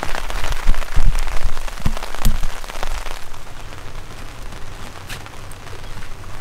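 Rain falling on a tent, with scattered drops tapping and a few heavier low thumps in the first three seconds, then a softer steady patter.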